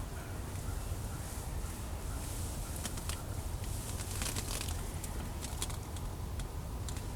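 Outdoor ambience: a steady low rumble with faint hiss, broken by a few soft rustles and clicks around the middle and near the end.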